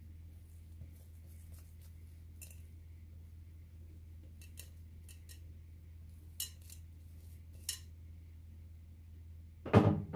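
Glass mixing bowl tipped over a floured wooden board, giving a few short faint clicks and scrapes as dough is worked out of it. Near the end comes a single loud thud with a couple of smaller knocks after it. A faint steady low hum sits underneath throughout.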